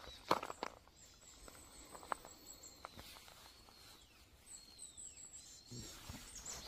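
A few footsteps rustling on dry fallen leaves and a dirt path in the first second, then a quieter stretch with faint bird chirps.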